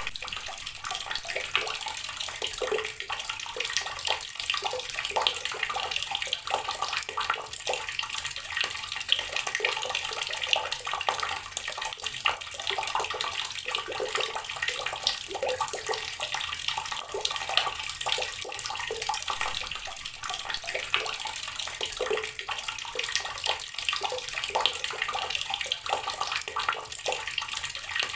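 Water running from a tap and splashing onto rocks, a steady, continuous splashing stream.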